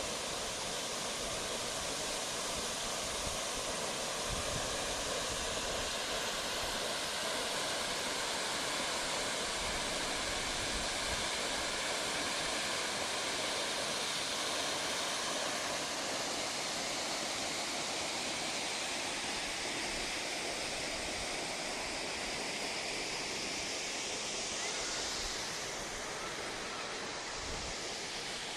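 Large waterfall rushing: a steady, even wash of falling water, its high hiss easing a little near the end.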